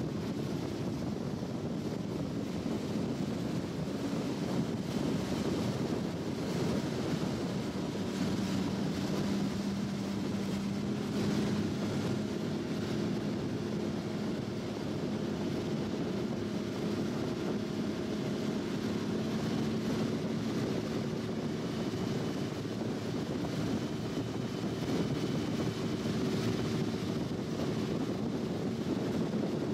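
A motorboat engine drones steadily, with a hum that drifts slowly in pitch, under a haze of wind on the microphone.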